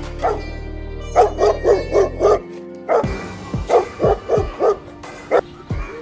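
A Doberman barking repeatedly in quick runs of four or five barks, with music playing underneath.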